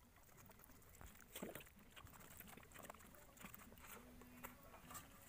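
Near silence, with a few faint scattered clicks and a brief faint hum about four seconds in.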